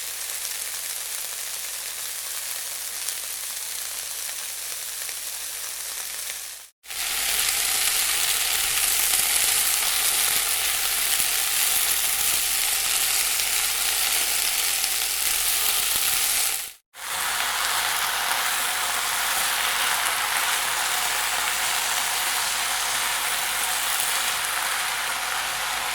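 Food frying in a hot pan: a steady crackling sizzle. It comes as three takes separated by two brief silences, about 7 and 17 seconds in, with the middle take the loudest and hissiest.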